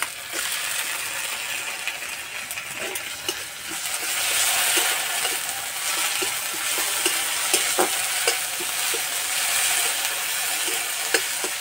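Sliced onions and freshly added ground spice paste sizzling in hot oil in a metal kadai, stirred with a metal spatula that scrapes and clicks against the pan. The sizzle grows louder about four seconds in.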